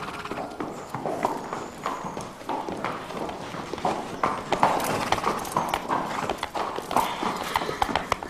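Hooves of young Lipizzaner stallions clip-clopping as they walk: an uneven run of hoof strikes from more than one horse.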